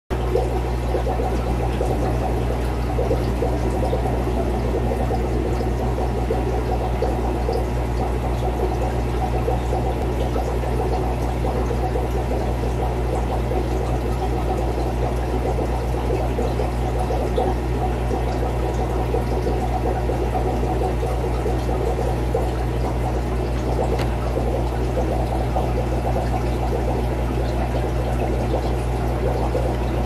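Water pouring and trickling steadily over a low, constant hum.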